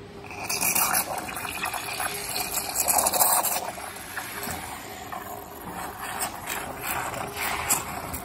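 Espresso machine's steam wand frothing milk in a plastic jug: a hissing, sputtering steam noise that starts about a third of a second in, is loudest over the first few seconds, then carries on somewhat lower.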